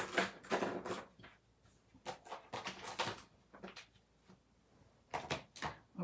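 Stamping supplies being handled on a craft table: three short clusters of clicks and knocks as items are picked up, moved and set down.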